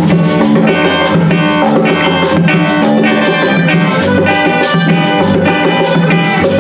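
Small band playing an instrumental passage: harmonica carrying the melody over electric bass and acoustic guitar, with a metal scraper tube keeping an even rhythm.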